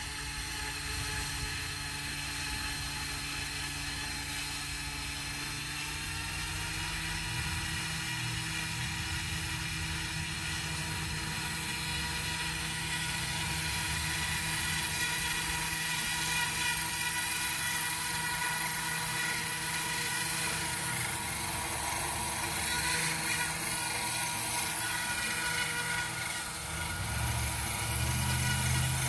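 Model helicopter's motor and spinning rotor running steadily on the ground, gradually getting louder, without lifting off.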